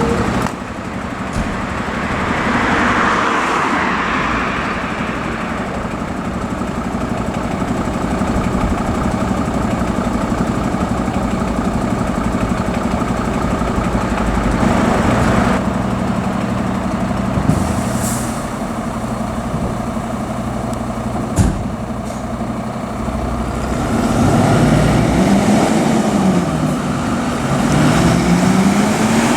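Heavy fire engine's diesel engine running steadily, with a short hiss a bit past the middle and a sharp knock soon after. Near the end the engine note rises and falls repeatedly.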